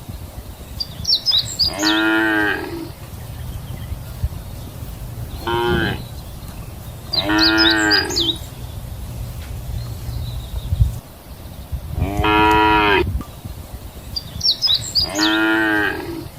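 Cows mooing: five separate drawn-out moos, one of them short, spaced a few seconds apart over a steady low background rumble.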